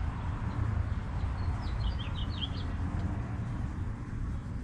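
A bird chirping a quick run of short high notes, about a second and a half in, over a steady low outdoor rumble.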